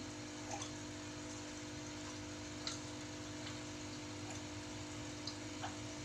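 Aquarium equipment running with a steady hum and hiss, and water trickling with a handful of small drips.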